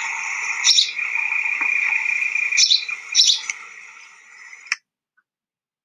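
Birds chirping: a steady twittering with sharper chirps now and then, fading in the last second and cutting off suddenly near the end.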